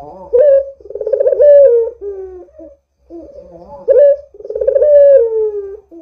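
A puter (Barbary dove) cooing. There are two rolling coo phrases, each a short rising note followed by a long pulsing coo that slides down in pitch.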